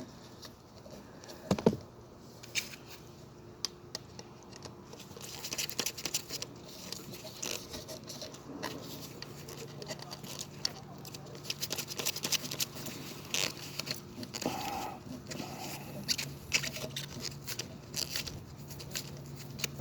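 Light clicking, scraping and rustling of wires being worked under the screw terminals of a fire alarm pull station, with one sharper click near two seconds in. A faint steady hum comes in about halfway.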